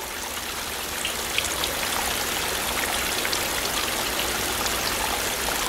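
Steady rain falling, an even hiss with scattered patter of drops, growing slightly louder about a second and a half in.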